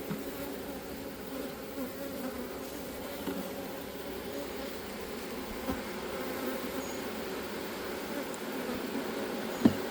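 A swarm of honeybees buzzing steadily around an open hive, a dense continuous hum of many bees in flight. A single sharp knock comes near the end.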